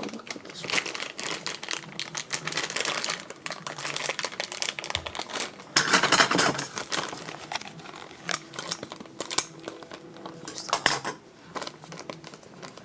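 Toy packaging being opened and handled by hand: a busy run of clicks, taps and crinkling, loudest about six seconds in.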